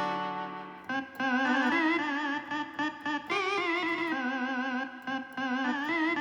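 Korg N264 keyboard playing a guitar-like lead voice with effects. A held note fades out over the first second, then a melody of sustained notes with strong vibrato follows.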